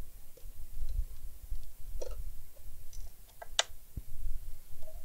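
Scattered clicks and light knocks of parts and tools being handled on a workbench, the loudest about three and a half seconds in, over a low rumble.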